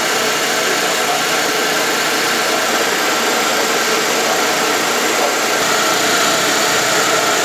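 Electric wet-grinding rice mill running steadily, grinding soaked rice into rice milk.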